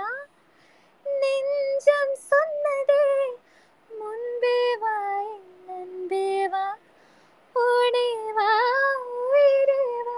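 A woman singing a Tamil song solo and unaccompanied, in a few phrases with short pauses between them and a wavering held note near the end.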